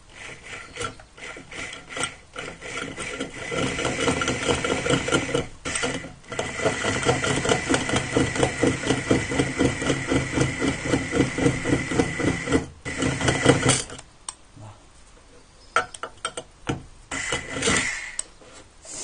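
Electric drill with a masonry bit grinding into a ceramic toilet-tank lid to enlarge its hole. It runs with a rapid, regular pulsing and cuts out briefly a few times. It stops about fourteen seconds in, followed by a few light knocks.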